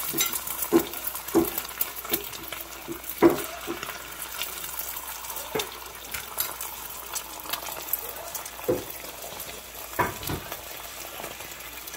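Beaten eggs sizzling in a non-stick frying pan, with a silicone spatula knocking and scraping against the pan at irregular moments.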